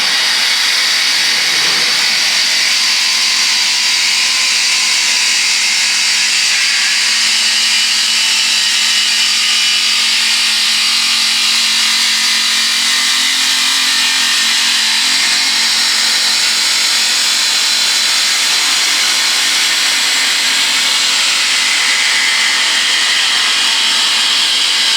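A woodworking power machine running steadily, with a loud, even, high-pitched hiss and a faint low hum underneath.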